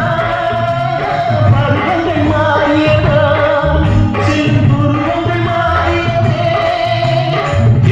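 Instrumental passage of a Tamil film song, mixed as 8D audio: a melody line over a steady low drum beat.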